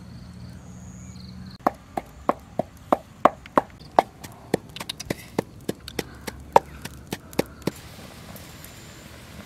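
Pestle pounding in a mortar by hand: a run of about twenty sharp knocks, about three a second, starting a couple of seconds in and stopping near the end.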